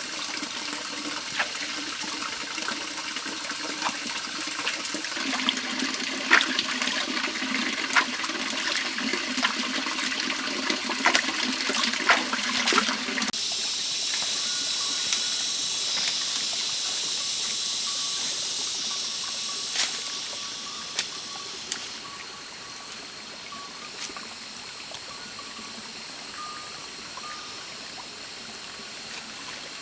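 Running water: splashing with many small clicks at first, changing abruptly about 13 seconds in to a steadier, higher hiss that grows quieter after about 20 seconds.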